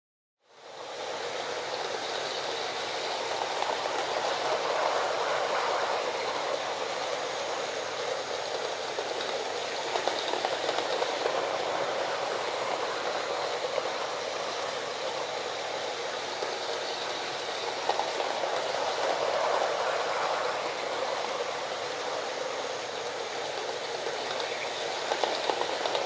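Toy electric train, a model Taurus locomotive pulling small wagons, running on its track: a steady whirring rattle of the motor and wheels that starts about half a second in, with an occasional sharp click.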